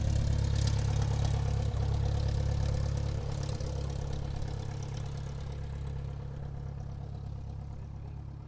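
Airplane taxiing on the ground: a steady low engine drone with several held tones and a light hiss above, gradually growing fainter.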